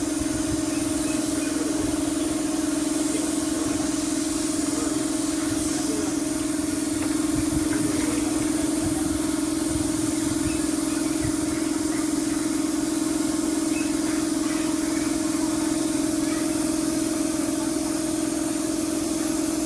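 A motor running steadily with a constant hum and a hiss above it.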